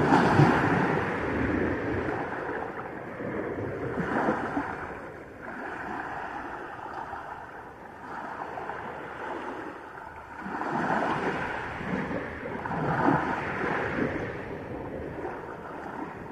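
Small sea waves breaking and washing up a pebble beach, swelling and fading several times.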